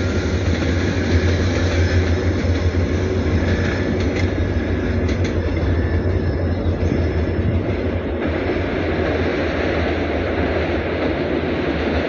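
Rumble of a train running on past a level crossing and moving away, a steady noise with a heavy low rumble that eases about eight seconds in.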